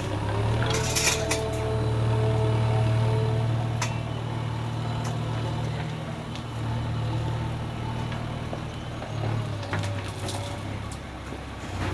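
A steady low machine drone, engine-like, with a few faint clicks and knocks over it; the drone eases for a moment about nine seconds in.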